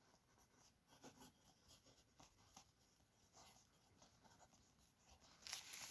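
Near silence: quiet room tone with faint, scattered light scratches and taps.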